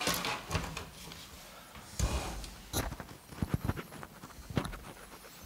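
Handling noise from a microphone on a lectern stand being taken hold of and adjusted: a run of irregular knocks, bumps and rubbing, with several sharp knocks among them.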